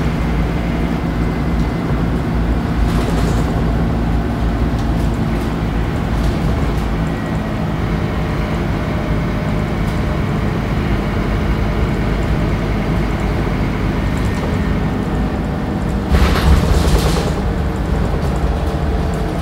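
Scania DC9 nine-litre five-cylinder diesel of a Scania K94UB bus running steadily in fifth gear at cruising speed, heard from inside the cabin at the rear. A short burst of hissing noise comes about three-quarters of the way through.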